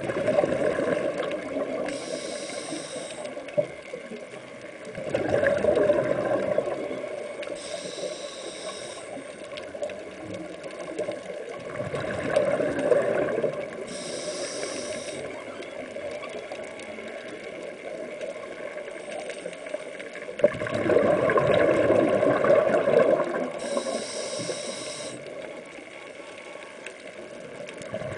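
Scuba breathing heard underwater through a demand regulator: short hissing inhalations alternating with longer bubbling exhalations, a breath cycle roughly every six seconds, four breaths in all.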